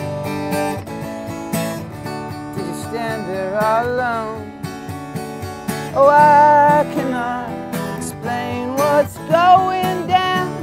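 Acoustic guitar strummed steadily, with a man singing over it; the voice comes in about three seconds in and is loudest around the middle.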